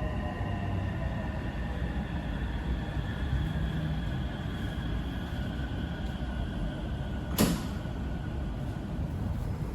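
Interior of an MRT Purple Line electric train coming to a stop at a station: the motor whine falls in pitch and fades over a low steady rumble. A single sharp clunk sounds about seven seconds in.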